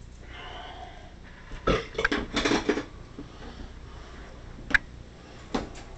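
Gear being handled and knocked about in a small ice-fishing house: a quick cluster of rattles and knocks about two seconds in, then two single sharp clicks near the end.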